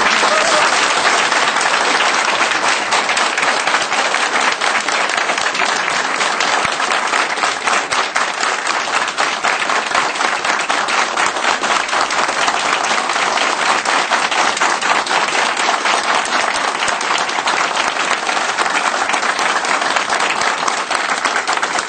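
Crowd applauding, a dense, steady clapping that goes on without a break.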